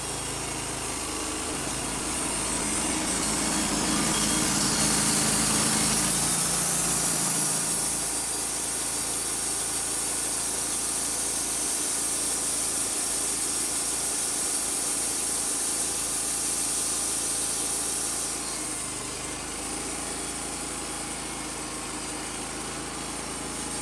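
Wood-Mizer LT35 hydraulic band sawmill running, its band blade cutting through an incense cedar log with a steady noise. The level eases down about a third of the way in and again near the end.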